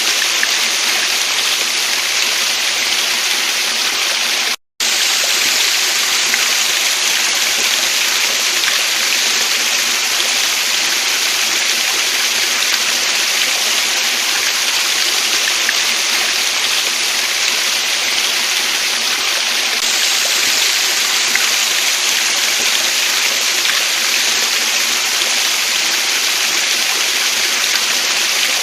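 Waterfall and stream water rushing steadily. It cuts out for a split second about five seconds in, then goes on as before.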